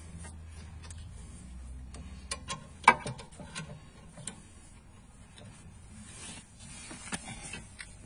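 Scattered metal clicks and knocks of a tool and gloved hand working at a car's rear disc-brake caliper and its bolts, the sharpest knock about three seconds in.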